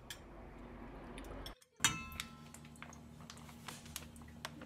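Metal kitchen utensils clinking against a stainless steel mixing bowl: one sharp, ringing clink about two seconds in, with lighter taps and clicks around it.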